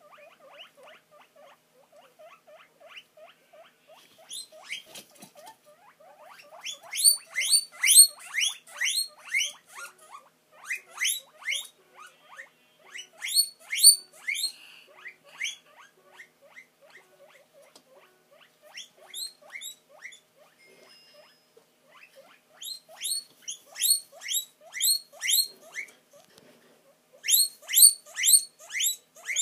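Guinea pig wheeking: rapid runs of high, rising squeals, several a second, the begging call for food. The calls start as softer, lower squeaks and grow into loud runs, with quieter stretches in between.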